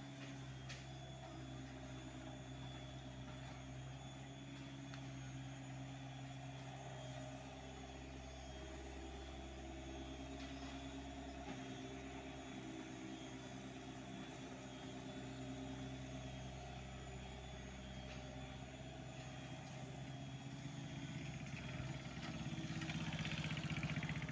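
Hyundai R80-7 mini excavator's diesel engine running steadily while the machine digs and swings, getting louder for a couple of seconds near the end.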